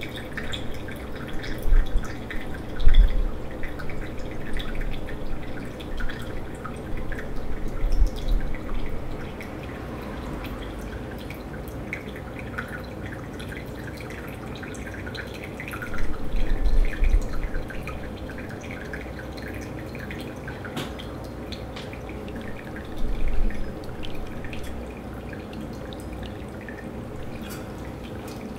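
Hand-drip coffee brewing: a thin stream of hot water from a gooseneck kettle pours onto ground coffee in a paper-filtered glass dripper while brewed coffee drips into the cup below. A few short low thumps sound over the steady dripping.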